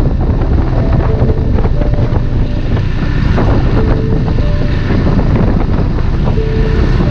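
Strong wind buffeting the helmet-mounted microphone over a motorcycle engine running at riding speed.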